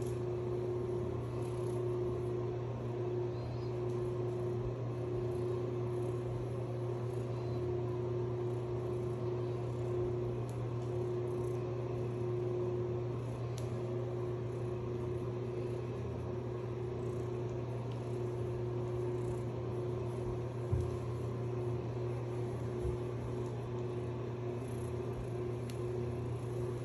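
A steady low hum with a faint steady tone above it that drops out briefly now and then, and a few soft knocks.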